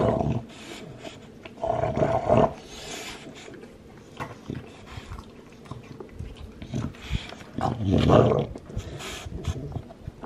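Olde English Bulldog gnawing on a chew bone: scattered clicks of teeth on the bone, with three louder throaty bursts from the dog at the start, about two seconds in, and about eight seconds in.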